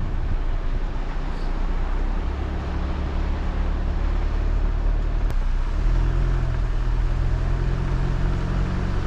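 A vehicle driving: steady engine drone and road noise, with the engine note changing about six seconds in.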